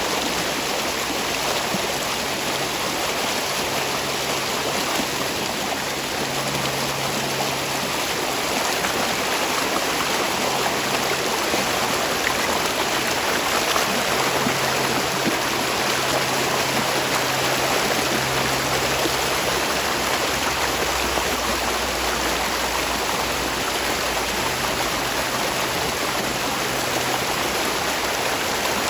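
Spring water running steadily, a constant even rush of flowing water.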